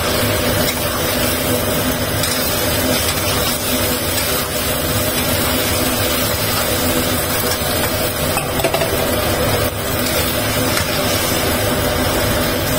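Metal spatula stirring scallops and snow peas in a wok as cornstarch thickens the sauce, scraping and clinking against the pan over a steady sizzling hiss and a low steady hum.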